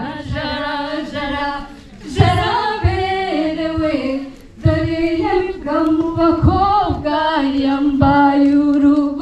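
A woman singing unaccompanied into a microphone, a melodic line in phrases with short breaks between them.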